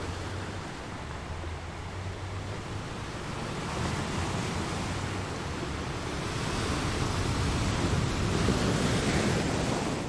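Ocean surf washing and breaking, a steady rush that swells to its loudest near the end, with wind rumbling on the microphone.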